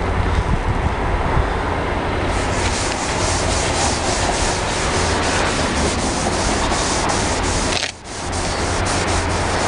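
Sponge scrubbing polish onto a plastic car headlight lens, a continuous rapid rubbing with a brief pause about eight seconds in.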